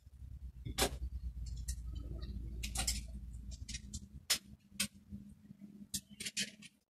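Sharp metallic clicks and taps, about a dozen at uneven intervals, from a hand tool working a BMX pedal on the crank arm as it is tightened. A low rumble runs under the first half.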